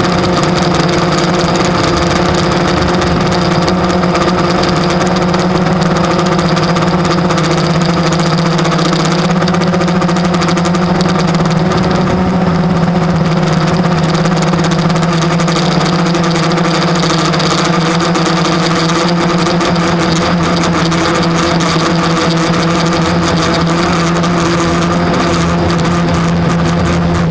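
Blade 350 QX quadcopter's brushless motors and propellers humming steadily in flight, the pitch holding nearly constant with small shifts.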